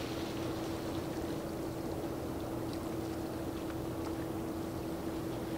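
Steady low drone of the ALTAIR LEADER, a large vehicle carrier under way as it leaves harbour, with a constant humming tone over a rumble. Faint lapping of water runs underneath.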